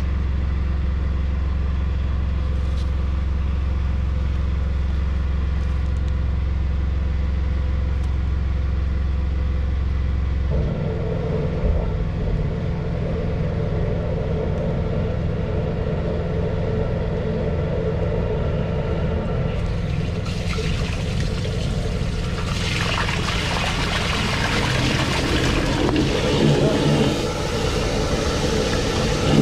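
Drain-jetting machine's engine running steadily, its note changing about a third of the way in. A rushing hiss comes in about two-thirds of the way through and grows louder.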